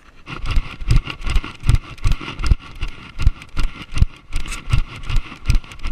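Jogging: footfalls and the bouncing of a body-worn action camera give a heavy thud about two and a half times a second, with a steady rustle over it.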